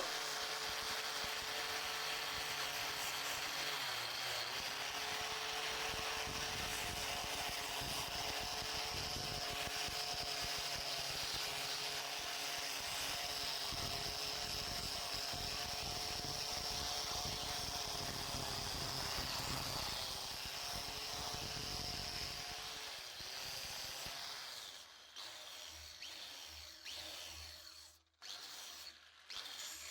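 Handheld electric power tool of the drill or grinder kind running steadily with a constant motor tone, then dropping away about 23 seconds in, with a few shorter intermittent runs near the end. A sharp click right at the start is the loudest sound.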